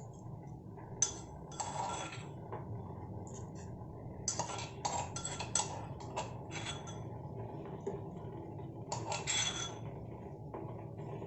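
Metal kitchenware clinking and scraping as coarsely crushed spices are tipped and scraped into a pot of warm water. It comes in a handful of separate clinks and short scrapes, busiest in the middle, over a faint steady low hum.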